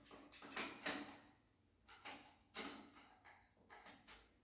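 Hand screwdriver driving a screw into a white plastic wall fitting: a handful of short, faint scrapes, one with each twist of the screwdriver.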